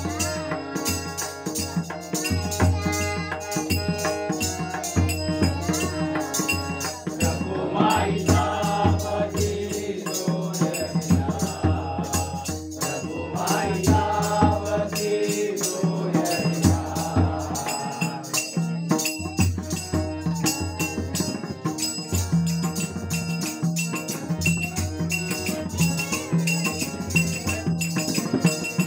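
Marathi devotional bhajan music: a harmonium holding steady chords and melody under a pakhawaj drum beating a steady rhythm, with a child's voice singing the bhajan in stretches.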